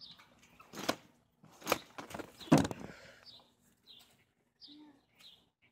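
Three thumps about a second apart, the last the loudest, as a person lands on a backyard trampoline mat. A bird chirps several short times in the background.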